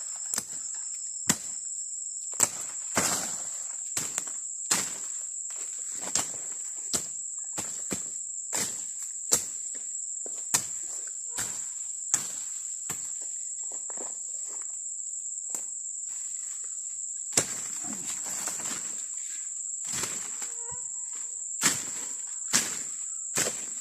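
Steady high-pitched insect chorus in the forest, with irregular footsteps, thuds and scuffs over it.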